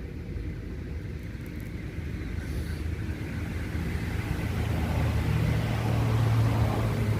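A motor vehicle's engine running low and steady, growing louder over several seconds as it comes closer, loudest near the end.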